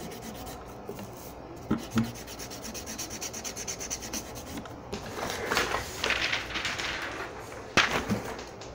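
Handling noise: a hand rubbing and scraping against the phone close to its microphone, loudest about five to seven seconds in, with a few knocks near two seconds and again near the end as the phone is set down.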